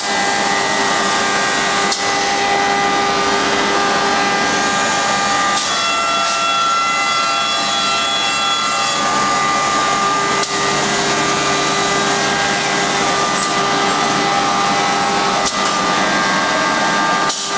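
HOMAG CNC woodworking machining center running: a steady machine whine from its router spindle over the rush of its dust extraction. About six seconds in, the whine shifts to a higher set of tones for some three seconds, then returns.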